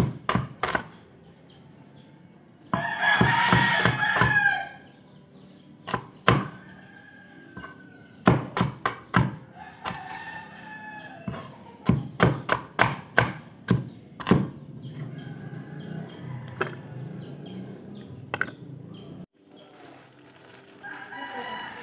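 Knife chopping onions on a cutting board in sharp, irregular strokes, about two a second in the middle stretch. A rooster crows loudly for about two seconds a few seconds in, and fainter fowl calls come around the middle and near the end.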